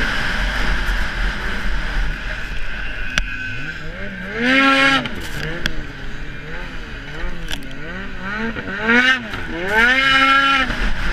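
Ski-Doo snowmobile engine under racing throttle. It revs up and eases off, its pitch climbing and falling, with two big climbs, one about four seconds in and one near the end. A few sharp knocks come between them.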